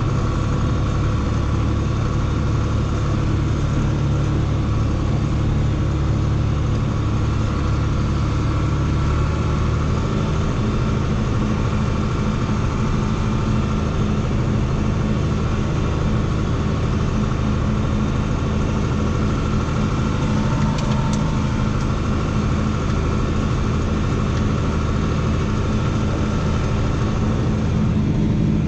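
Farm tractor engine running steadily while pulling a full grain wagon; the engine note shifts about ten seconds in, then holds steady.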